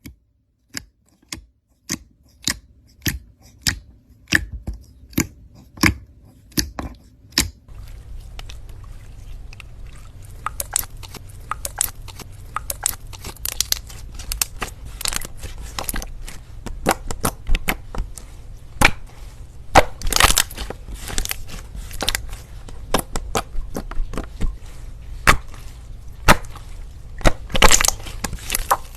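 Slime being squished and pressed by hand. The first seven seconds or so are a steady run of sharp pops about twice a second, then continuous crackling and crunching with louder pops throughout.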